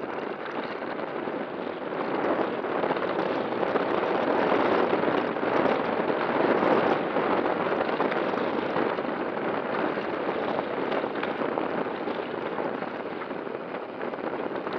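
E-mountain bike descending a dirt and gravel trail: knobby tyres rolling over loose ground with a continuous crackling rush and rattle, picked up by a camera fixed to the bike's frame. It gets louder in the middle, as the bike runs faster over rougher ground.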